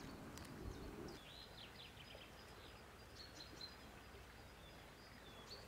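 Faint birdsong: small birds chirping and twittering in short, high, repeated notes, over quiet outdoor background. A soft rustle comes in the first second.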